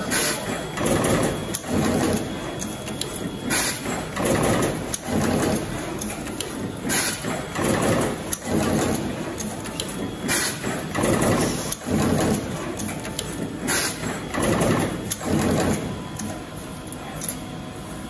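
Automatic wire cutting and terminal crimping machine running through its cycle: a repeating clatter of strokes about once a second, with a sharper burst about every three and a half seconds.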